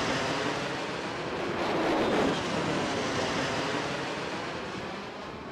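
Steady rushing roar of an aircraft in flight. It swells about two seconds in and fades away near the end.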